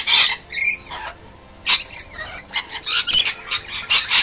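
A flock of rainbow lorikeets screeching and squawking as they feed together, harsh high calls coming in quick overlapping bursts, with a short lull about a second in.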